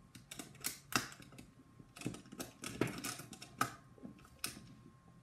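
Irregular light clicks and knocks of small metal hardware and plastic blaster parts being handled and fitted together by hand on a wooden table.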